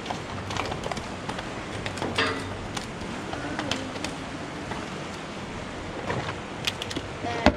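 Scattered light clicks and knocks of fishing gear being handled on a metal grating deck, over a steady background rush. Near the end comes a quick cluster of sharper clicks as the plastic tackle box's latches snap open.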